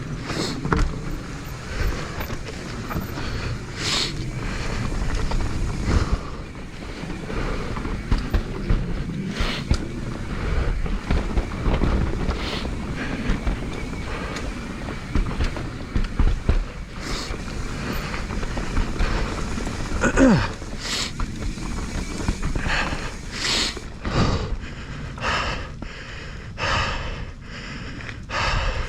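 Mountain bike descending a dirt trail: tyres rumbling over the ground, the bike knocking and rattling over bumps, with wind buffeting the helmet camera's microphone. Near the end a string of short puffs about once a second, the rider breathing hard.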